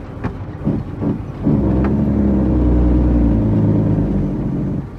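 Heavy truck's diesel engine running under load in a long, steady pull, after a short lull broken by two brief surges.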